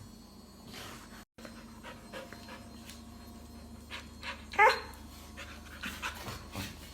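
Australian Shepherd dog panting, with one short, loud bark about two-thirds of the way through.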